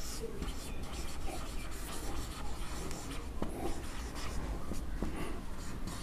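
Marker pen writing on a whiteboard: faint scratching strokes as a word is written out letter by letter, over a steady low hum.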